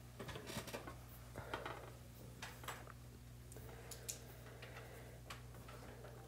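Quiet classroom room tone: a steady low hum with scattered faint clicks and taps.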